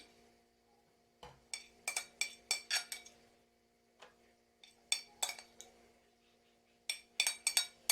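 A metal spoon clinking against a bowl and small empada baking tins while filling is spooned in, in three short runs of quick taps, over a faint steady hum.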